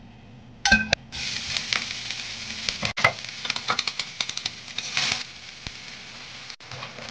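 Hot oil in a stainless steel wok frying chopped aromatics: a sharp knock about a second in, then a loud crackling sizzle that eases to a softer sizzle about five seconds in, as beaten egg is poured over.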